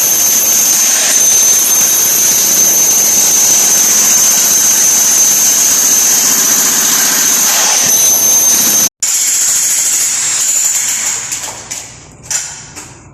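A loud, steady, high-pitched machine whine over a hiss. It cuts out abruptly about nine seconds in, then comes back and fades away near the end.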